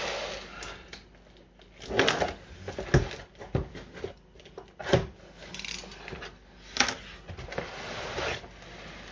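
Cardboard shipping box being opened: packing tape cut with a knife and the cardboard flaps pulled open, with rustling and scraping cardboard and several sharp knocks.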